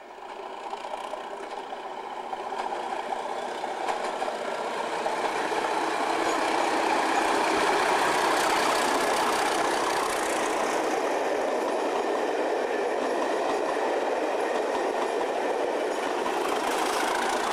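Loco-hauled passenger train headed by a Class 37 diesel locomotive approaching and running alongside the station platform. The sound grows louder over the first six or seven seconds and then holds steady and loud as the locomotive and coaches pass.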